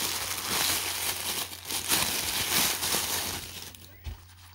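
Clear plastic bag crinkling and rustling as it is pulled off a wristwatch and its display pillow by hand, dying away about three and a half seconds in. A single low thump near the end.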